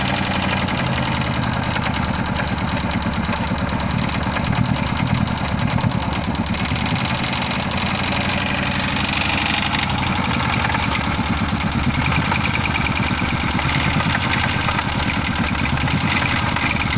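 VAZ-2101 inline-four petrol engine idling with a rapid, even ticking knock from the camshaft.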